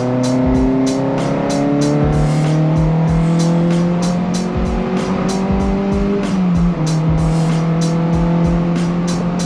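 VW Golf 1's 1.8-litre 16-valve four-cylinder on twin Weber carburettors, running under load with its revs climbing slowly, easing slightly with a short dip about two-thirds of the way through. Music with a steady beat plays alongside.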